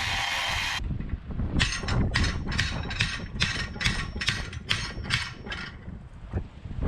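A power tool's noise cuts off within the first second, followed by quick, regular hammer blows on steel, about three a second, as the welded canister is worked off the billet.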